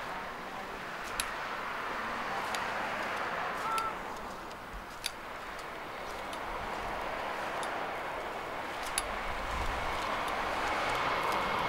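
Road traffic on a coastal road, tyre noise of passing cars swelling and fading, with scattered light clicks. A low rumble builds near the end.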